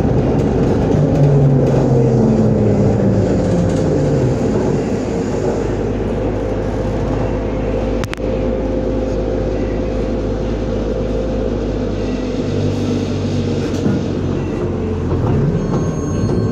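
ZiU-682V trolleybus running, heard from inside: the traction motor's whine falls in pitch over the first few seconds as it slows, under a steady hum. There is a single click about eight seconds in, and near the end the whine rises in pitch again.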